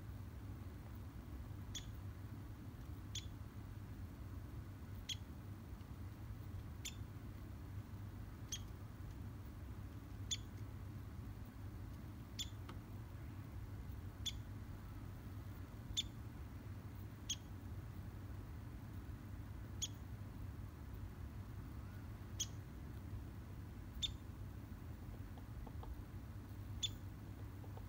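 A short, high squeak repeated about every one to two seconds, over a steady low rumble.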